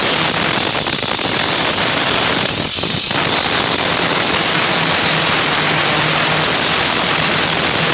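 A workshop tool running steadily: a loud, even hiss with a faint hum underneath.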